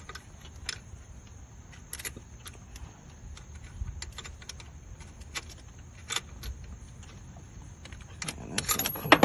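Irregular metallic clicks and clinks of hand tools on metal, from tightening the alternator's mounting and adjuster bolts. The clicks come a few times a second and grow busier near the end.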